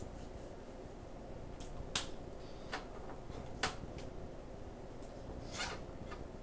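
Hands meeting and rubbing while a person signs, giving a few sharp clicks and soft taps over a steady low room hum.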